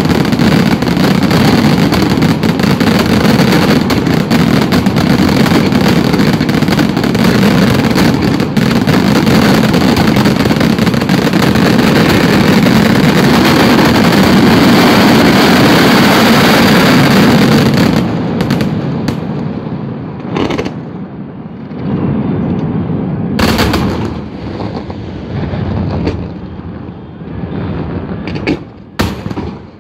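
Daytime fireworks: a dense barrage of rapid bangs and crackling shell bursts, which thins out about eighteen seconds in to a few separate loud bangs.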